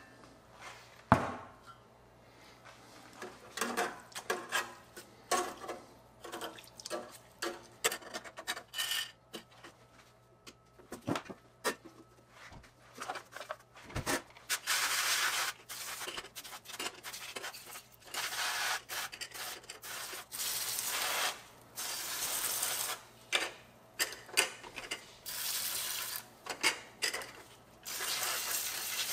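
A few clanks and knocks as a wire parts basket is handled, then a hand pump sprayer rinsing the parts in repeated hissing bursts of a second or two each, starting about halfway through.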